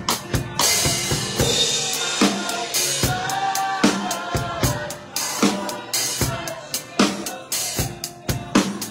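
Drum kit played with sticks in a busy groove: rapid snare and bass drum hits with cymbal crashes, the cymbals ringing out brightly about a second in.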